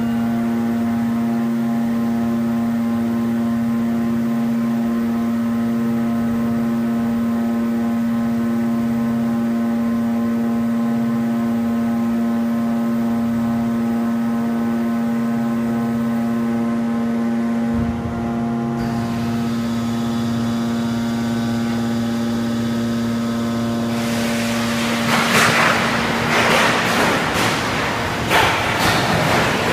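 Hydraulic car-crushing press running, its pump unit giving a loud steady hum with a strong low tone while the press closes down on a car body. About 18 s in the hum shifts, and from about 24 s a loud rough rushing noise with irregular surges joins it.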